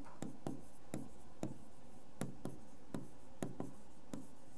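Hand-writing on a classroom board: a quick run of light taps and short strokes, about three a second, as letters are written.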